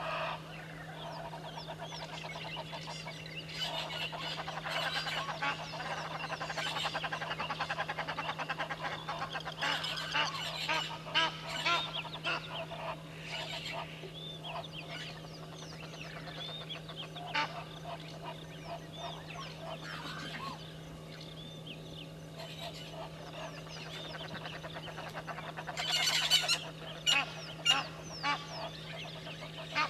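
A morning chorus of birds at a waterhole: many overlapping calls with goose-like honking, and loud bursts of sharp, clinking calls, the loudest near the end. A steady low hum runs underneath.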